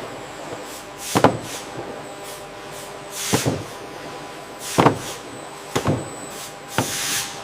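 Production-line machinery running with a steady hum and hiss, broken by about five sharp mechanical clacks spaced a second or two apart.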